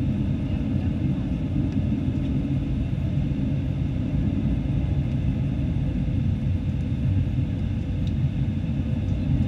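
Airbus A318-111 airliner cabin noise on approach, heard from inside the cabin: a steady low rumble of airflow and the CFM56 turbofan engines, with faint steady whining tones above it.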